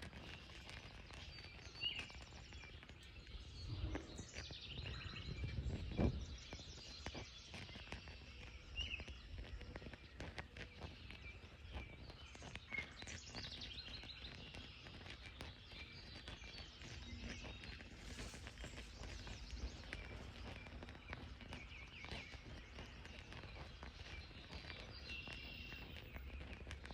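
Outdoor ambience with birds chirping here and there over a steady low rumble, and a couple of brief knocks about two and six seconds in.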